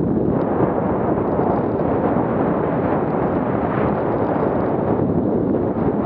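Steady, loud wind rush buffeting the microphone of a camera on a skier moving fast downhill, mixed with skis running over packed snow.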